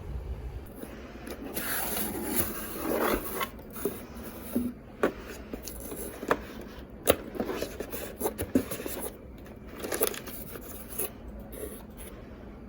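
Small objects being handled: scraping and rubbing, with scattered sharp clicks and knocks at an uneven pace over a low steady hum.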